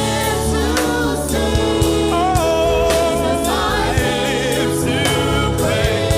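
Gospel worship music: several voices singing long held notes with vibrato over a band with bass and drum hits.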